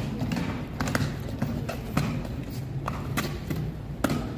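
Heavy cavalry boots stepping and stamping on stone paving as a file of troopers marches into line and halts, heard as about seven sharp, irregular knocks.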